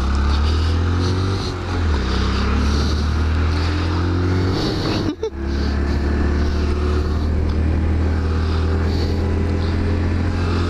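Honda Grom's small single-cylinder four-stroke engine running under way on the road, with wind rushing over the helmet microphone. The engine note climbs slowly, cuts out briefly about five seconds in, then runs on steadily.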